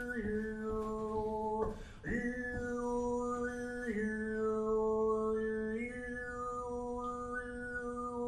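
A man singing live, holding a low drone note while a whistle-like melody of single overtones steps up and down above it. The drone shifts between two pitches and breaks off briefly about two seconds in before resuming.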